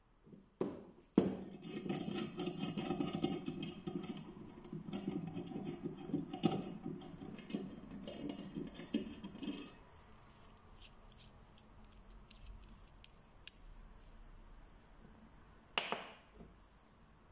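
Stainless-steel push rods and screw-on tips of a paintless dent repair kit being handled: a couple of sharp metal clicks, then about eight seconds of continuous rustling and light clinking, then scattered soft ticks and one more click near the end.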